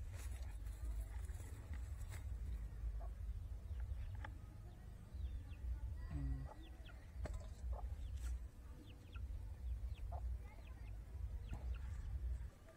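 A bare hand scraping and digging through dry, stony soil to pull out small elephant foot yam cormels: dirt crumbling, with scattered sharp clicks of grit and pebbles, over a steady low rumble that stops near the end. Faint short bird calls sound now and then in the background.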